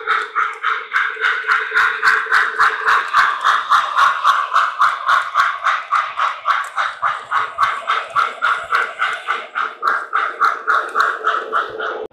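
Model railroad bell ringing steadily, about three strokes a second, over the low running sound of O-gauge trains; it cuts off suddenly near the end.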